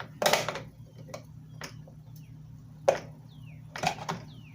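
Hand tools and sockets being handled: half a dozen scattered metal clanks and knocks, the loudest a quarter second in, over a steady low hum.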